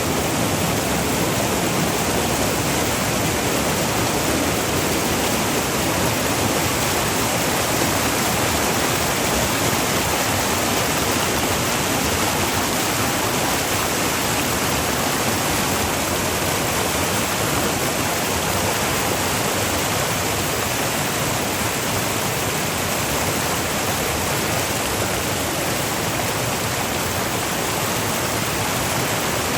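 The Virgin River's water flowing and falling over waterfalls: a loud, steady rush that does not change.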